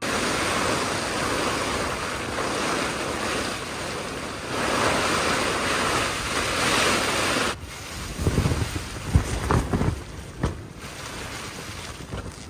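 Storm wind and rain beating on a tent, heard from inside as a loud, steady rush. About seven and a half seconds in it drops to a lower level, with irregular low thuds as the tent fabric is shaken.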